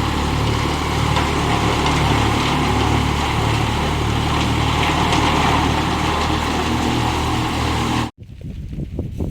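An engine or motor running steadily. It cuts off abruptly about eight seconds in and is followed by quieter, irregular ticks and rustles.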